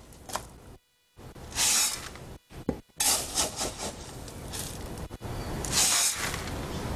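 A metal hand scoop digging and scraping into concrete aggregate in a bin, with the loose material rattling and pouring into a bucket, several scoopfuls in a row.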